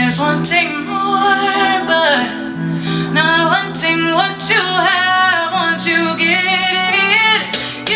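Pop song played through a JBL Legacy LA-800 three-way loudspeaker: a sung melody with wavering, held notes over steady sustained bass notes, with occasional drum hits.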